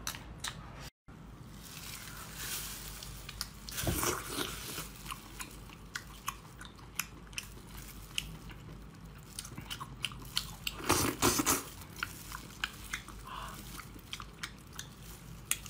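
Close-up mouth sounds of a person biting and chewing chili-sauced octopus tentacles: many sharp wet clicks and smacks, with two louder, longer chewing stretches around four and eleven seconds in.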